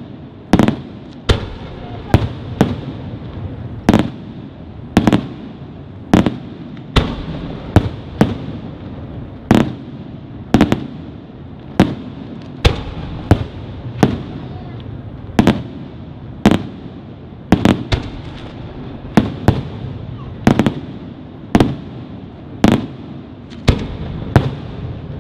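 Aerial firework shells bursting in a steady run of sharp bangs, about one to two a second, each trailed by a short rumbling echo.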